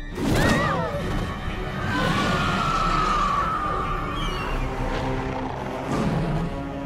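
Suspenseful cartoon score with a sudden loud stinger, then a long shrill screech from a giant owl-like cartoon monster over the music, with a short rising squeal after it.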